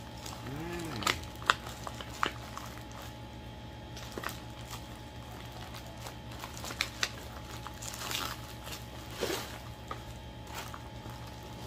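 Plastic packaging crinkling and rustling as hands rummage through an emptying package, with scattered light clicks and handling knocks.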